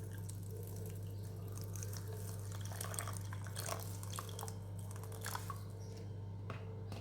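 Water being poured into a pot of dried herbs, with scattered small splashes and drips over a steady low hum.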